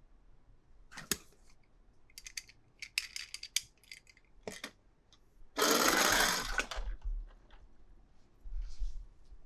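Hands unboxing and handling toy cars and their packaging: scattered clicks and taps, a quick run of clicks, then a loud noisy burst lasting over a second about six seconds in.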